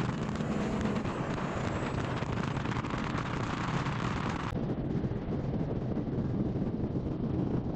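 Peterbilt 389 dump truck's diesel engine running with a steady rumble, with wind noise on the microphone. The hiss over it drops away suddenly about four and a half seconds in, while the low rumble carries on.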